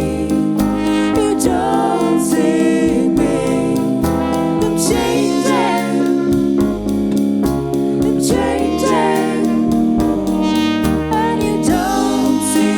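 Band music with a steady beat, held bass notes and a gliding sung or horn-like melody line.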